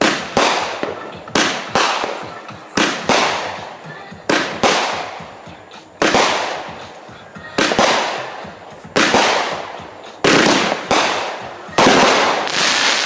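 Fireworks going off in quick succession: about ten sharp reports, roughly one a second and sometimes two close together, each dying away before the next.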